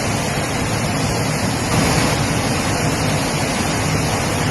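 Rushing water, a loud steady noise without a break.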